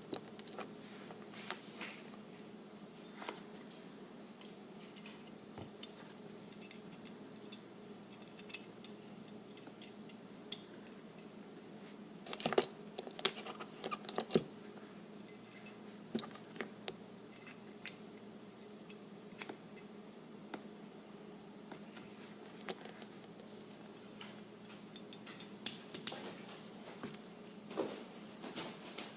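Metal parts of a Glock 19 pistol clicking and clinking as it is handled and worked on by hand: scattered light taps, with a denser run of clinks near the middle.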